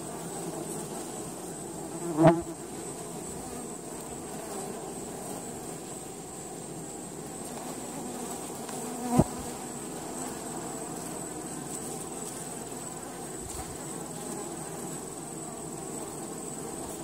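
Honey bees buzzing in a steady hum around a wooden hive box. Two brief, louder buzzes stand out, about two seconds and about nine seconds in.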